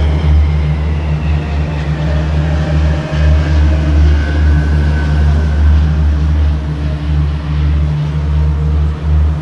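Antonov An-225 Mriya's six turbofan engines droning overhead in a low fly-past: a heavy, steady rumble with a whine that slides slowly down in pitch as the aircraft passes.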